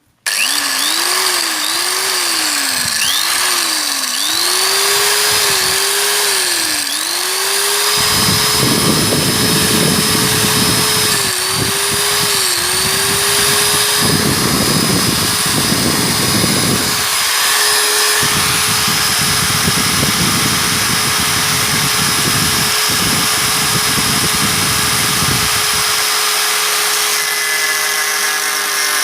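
SIM-100B electric angle grinder starts abruptly and runs with a high whine. Its speed sags and recovers several times as the disc is loaded. It then holds steady through three long stretches of rough cutting noise as the disc works into material.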